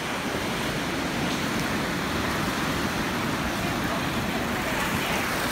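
Steady rushing noise of ocean surf breaking on the beach.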